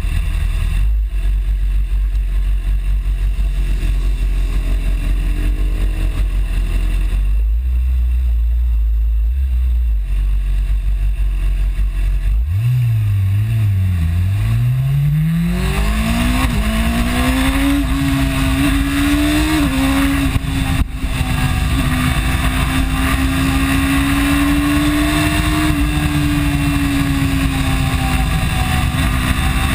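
BMW S1000RR inline-four engine heard from an onboard camera with heavy wind rush. For the first dozen seconds there is mostly a low rumble. Then the engine note wavers and climbs as the bike accelerates hard, and it holds at high revs at speed.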